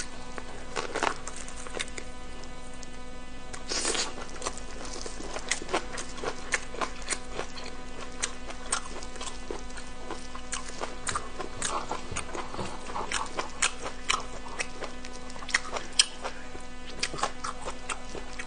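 Close-miked chewing of pig intestine and raw Chinese scallion: irregular wet clicks and smacks, with a few louder crisp crunches about a second and about four seconds in.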